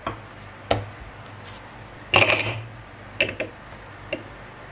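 Wooden rolling pin knocking and clattering against a granite countertop while bread dough is rolled out into a thin round sheet: a sharp knock about three quarters of a second in, a louder clatter a little after two seconds, then a few lighter clicks.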